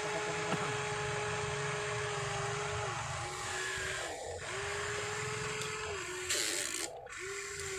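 HUINA remote-control toy excavator's electric motors whining steadily as the boom lowers and the bucket digs into sand, the whine dipping and breaking off briefly a few times as the motors change load. A short hiss comes a little after six seconds in.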